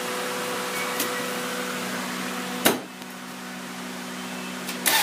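A steady hum holding a few fixed tones, broken by a sharp thump a little under three seconds in, after which it runs quieter. Right at the end the car's engine starts cranking and catches, its first start after a spark plug change.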